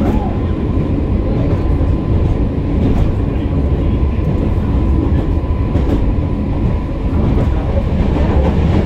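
Tram running along its tracks, heard from inside the car: a steady low rumble with a faint steady whine and a few sharp clicks of the wheels on the rails.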